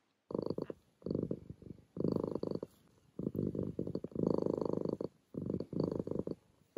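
A domestic cat purring in stretches about a second long with short breaks between, the rhythm of purring on each breath in and out.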